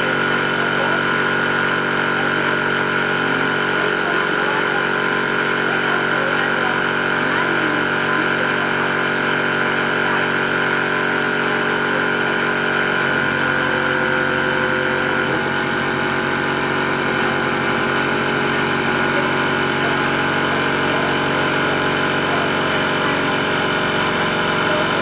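Electric two-stage reciprocating high-pressure PCP air compressor running steadily under load as it fills an air cylinder toward 200–300 bar, a constant motor-and-pump drone with several fixed tones.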